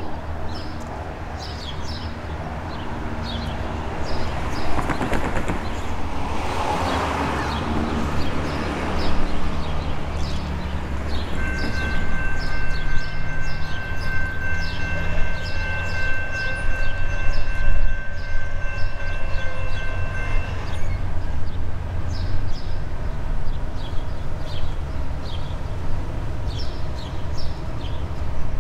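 Approaching diesel freight train led by a Norfolk Southern GE AC44C6M locomotive: a low rumble that slowly grows louder, with the locomotive's multi-chime air horn sounding one long steady chord for about nine seconds around the middle.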